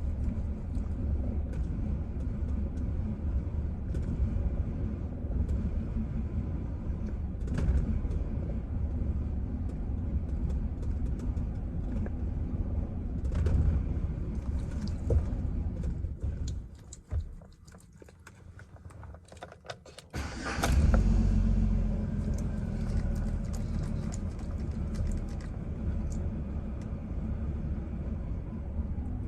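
Chevrolet Silverado engine idling very roughly. It dies about two-thirds of the way through, leaving a few seconds of near quiet with quick clicking as it is cranked on a nearly dead battery. Then it catches with a loud surge and goes back to running.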